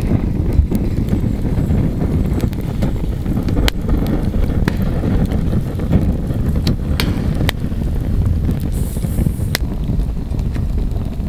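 Wood campfire burning: a steady low rumble with about half a dozen sharp crackles and pops of burning wood, scattered through the middle.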